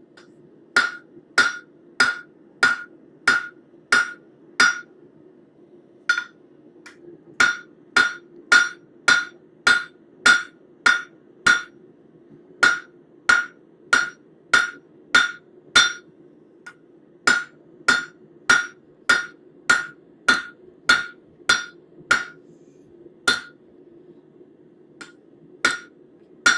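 Hand hammer striking a hot stainless steel bar on an anvil, drawing out the taper of a butter knife blade. The blows are even, about one and a half to two a second, each with a short metallic ring, and come in runs of several strikes broken by brief pauses. A steady low hum runs underneath.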